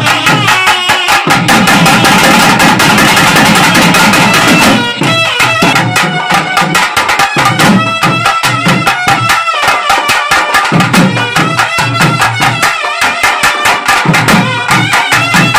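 South Indian temple music: a nadaswaram plays a melody over rapid strokes on a thavil drum.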